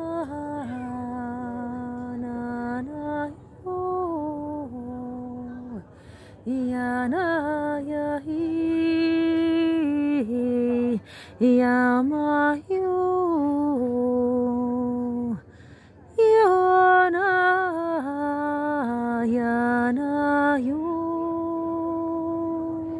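A woman singing a slow chant in long held notes that slide from one pitch to the next, in several phrases broken by short pauses.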